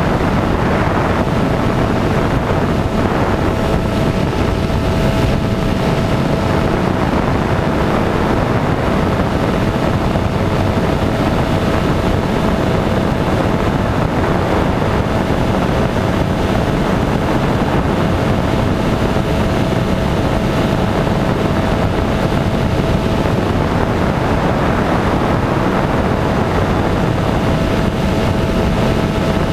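Single-engine light aircraft's propeller engine running steadily in the take-off climb, with heavy wind rush over the exposed wing-mounted camera. The engine note holds constant throughout.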